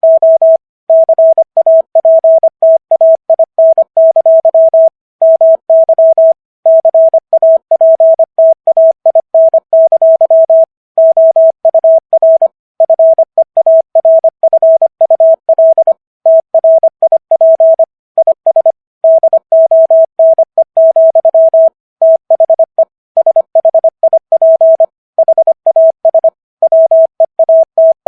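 Morse code at 25 words per minute: a single clean mid-pitched tone keyed on and off in quick dots and dashes, with brief gaps between letters and words. It spells out the text of Walt Whitman's "O Captain! My Captain!" for code-copy practice.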